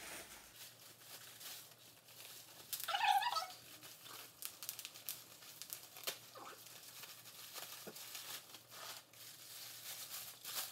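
Plastic bag and bubble wrap crinkling and rustling in the hands as a part is unwrapped, in many small scattered crackles. About three seconds in comes one short, high, voice-like call, louder than the rustling.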